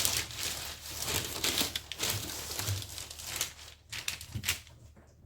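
Paper pattern rustling and crinkling as it is handled and marked, in irregular scratchy bursts with a few sharper crackles.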